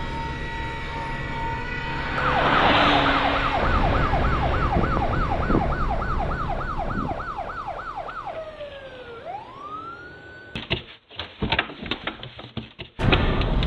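Siren yelping in quick up-and-down sweeps, about three a second, over a low rumble. It winds down in a falling glide and rises once more briefly, then gives way to a run of sharp crackling clicks near the end.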